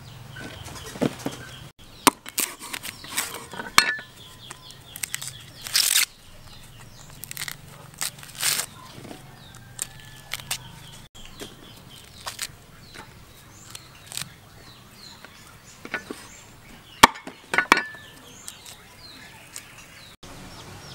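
Green husks being torn and peeled off young baby corn ears by hand: irregular crisp crackles and rips.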